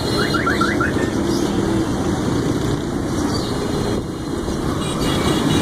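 Steady street traffic noise, with a quick run of about five short rising chirps in the first second.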